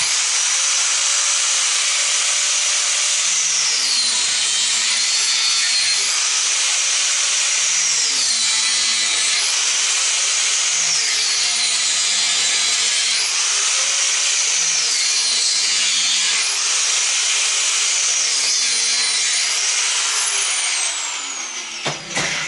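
Angle grinder with a cut-off disc running at full speed and cutting metal. Its high whine drops in pitch about five times as the disc bites under load, and recovers between cuts. Near the end it is switched off and spins down.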